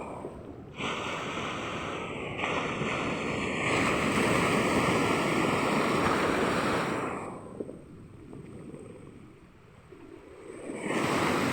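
Ocean waves breaking and washing up on the shore, a steady rush of surf that swells louder about four seconds in, eases off to a quieter wash after about seven seconds, and builds again near the end.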